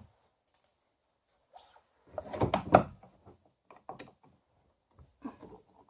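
Screwdriver and hands working the screws out of the kayak's plastic rudder control housing: scattered clicks and scrapes, with a louder cluster of knocks and rattles about two to three seconds in.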